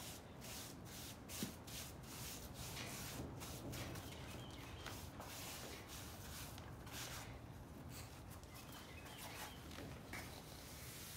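Gloved hands pressing and rubbing a wet earthen floor mix of clay soil and masonry sand into place: faint, soft rubbing, with a run of quick strokes in the first couple of seconds and a wooden trowel scraping over the mud near the end.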